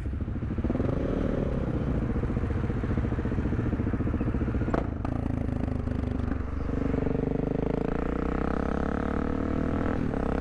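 Supermoto motorcycle engine revving up about a second in, then running steadily at road speed, with wind noise over the helmet-mounted camera. A sharp click comes about five seconds in.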